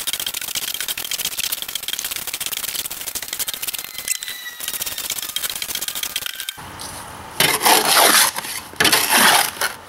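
A garden hoe scraping and chopping through wet gravel concrete mix in a wheelbarrow, a fast, dense run of gritty scrapes. About six and a half seconds in it changes to a few slower, louder scrapes of a shovel working the mix.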